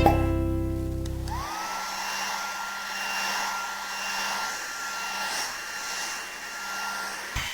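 A musical chord dies away over the first second and a half. Then a steady hiss of rushing air sets in, with a whistling tone that rises and then holds.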